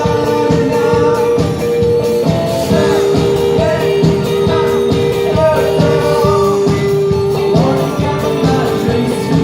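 Live rock band playing: guitars holding long notes over a steady drum beat, with a singing voice.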